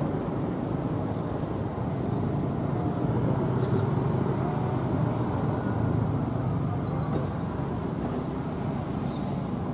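Diesel-electric locomotive engine running with a steady low rumble as the locomotive moves slowly along the platform track. The rumble grows a little louder partway through.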